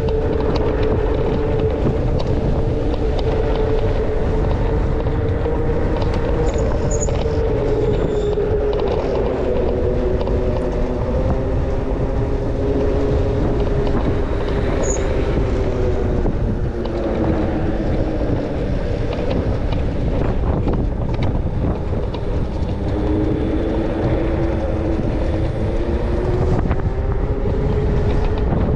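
ONYX RCR electric bike's motor whining under way, its pitch sagging through the middle and rising again near the end as speed changes, over steady wind rush on the microphone.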